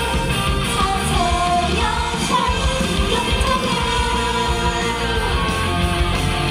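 Female idol group singing a pop song live into microphones over loud backing music with a steady beat, heard through the stage PA.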